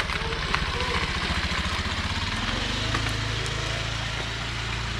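Small motorcycle engine running at low speed, heard from on board, over a steady hiss of wind and road noise. Its low pulsing settles into an even hum about halfway through.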